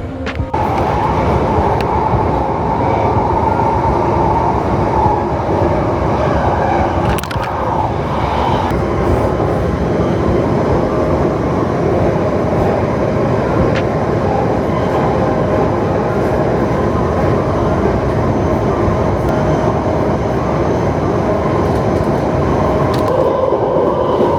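A train running, with a loud steady rumble and a steady whine over it.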